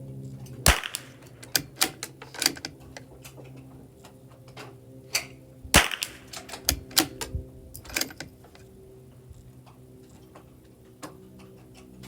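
Two shots from a Tikka T1x bolt-action .22 LR rifle, about five seconds apart, with smaller clicks and clacks in between.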